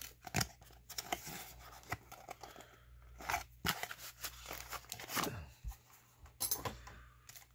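Cardboard trading-card box being opened by hand and its contents slid out: scattered short scrapes, taps and rustles of cardboard, with foil card packs and a plastic card holder being handled.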